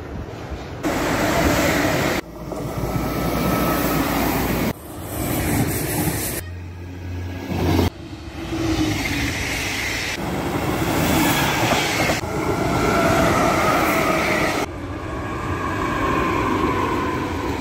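Short clips of electric trains cut together, the sound changing abruptly every one to several seconds: electric locomotives with passenger and freight trains running past, the rumble and rattle of wheels on rails, with a high tone in the later part.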